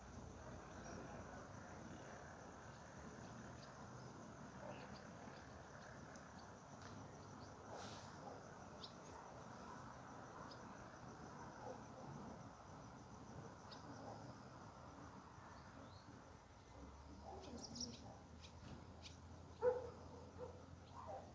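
Faint dusk ambience: a steady high chirring of crickets with scattered short bird chirps. A brief louder call stands out near the end.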